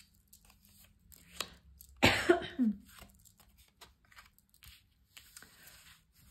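Soft rustles and light taps of tarot cards being spread and laid down on a cloth. About two seconds in there is a single short cough.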